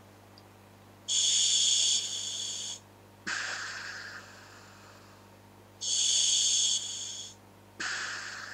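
Breathing through scuba regulators fitted to a hooded gas mask: two breath cycles, each a loud hiss of air through the regulator lasting about a second and a half, followed a moment later by a quieter breath that starts suddenly and fades away.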